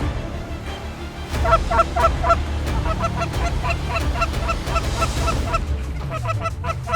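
Canada geese honking: a quick run of short honks and clucks that begins about a second and a half in and grows denser near the end.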